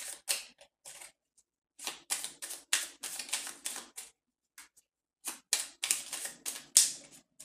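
A deck of fortune-telling cards shuffled by hand: quick runs of dry card slaps and riffles in three spells, with short pauses about a second in and about four seconds in.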